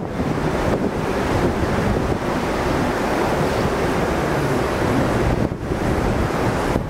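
Water rushing steadily out of an inner-tube water slide's exit tube into the shallow runout lane. A rider on an inner tube slides out and splashes to a stop in the runout about halfway through.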